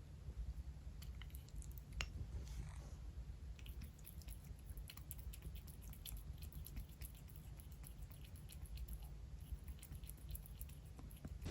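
A kitten chewing food, heard faintly as scattered small clicks and crunches over a low steady room hum, with one sharper click about two seconds in.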